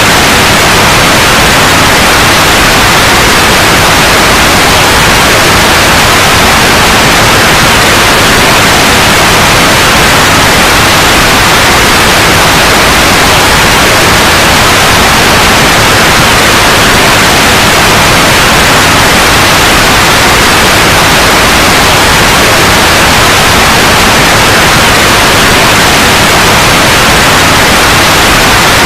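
Loud, steady white noise: an even hiss across the whole range, unbroken and unchanging.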